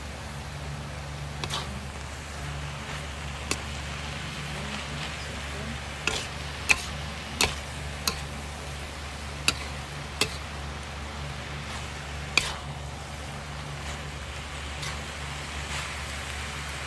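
Spatula knocking and scraping against a steel wok while vermicelli noodles, carrot and beef are stir-fried, with about ten sharp, irregular clanks over a light sizzle. A steady low hum runs underneath.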